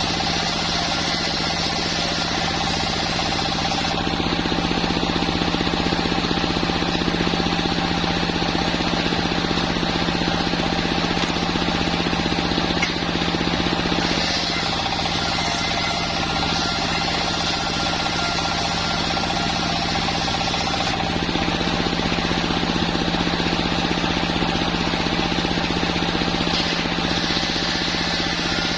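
Sawmill machine running steadily as it saws a waru log, with a constant low hum; the higher hiss changes about four seconds in and again about twenty-one seconds in.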